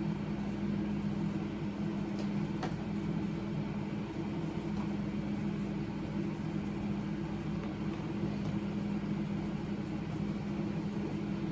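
Steady low mechanical hum with two faint clicks a little after two seconds in.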